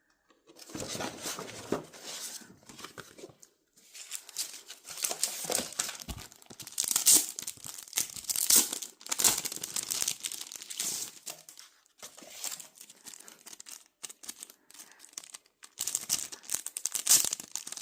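Album packaging being torn open and crumpled by hand: irregular crinkling and tearing in bursts with short pauses, as the wrapping comes off a K-pop CD album.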